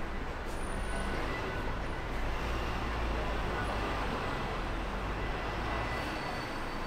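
Street traffic going past: a steady low rumble of car and bus engines with tyre noise, swelling a little in the middle.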